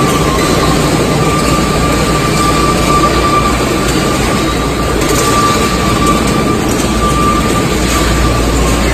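Aluminium coil processing line running: loud, steady machinery noise with a thin, high whine through it and a low rumble that grows stronger near the end.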